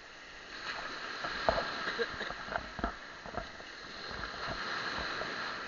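Shallow seawater splashing and sloshing as someone wades, heard through a waterproof camera housing, with a run of irregular knocks and splashes in the middle.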